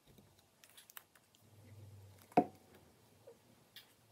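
Hands handling butterfly-wing cutouts on a paper journal page: faint scattered clicks and rustles, with one sharper tap about two and a half seconds in.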